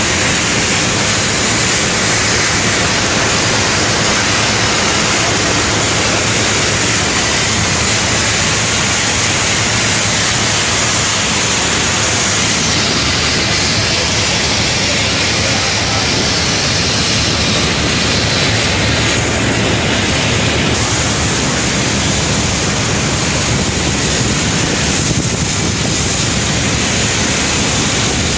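Steady loud rushing noise throughout. From about 13 to 21 seconds in, an aerosol can hisses as it sprays white contrast paint onto a steel propeller shaft for magnetic particle inspection.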